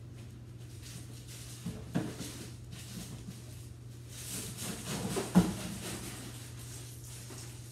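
A white plastic trash bag being handled and pulled out of a kitchen trash can: the bag crinkles and rustles, with a couple of knocks about two seconds in and a sharp knock a little past five seconds.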